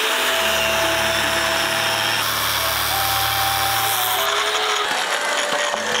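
Angle grinder with an abrasive cut-off disc cutting through a cast-metal stub, a steady grinding and motor hum that stops about five seconds in.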